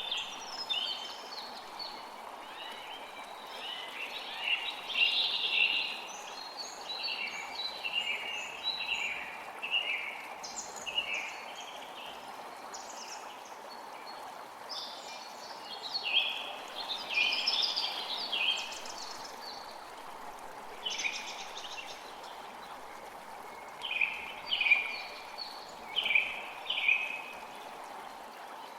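Creek water running steadily while songbirds chirp and trill in repeated short bursts, several phrases clustering every few seconds.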